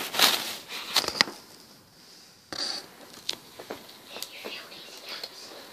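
Scattered short rustling and scraping noises with several sharp clicks, like handling noise close to the microphone.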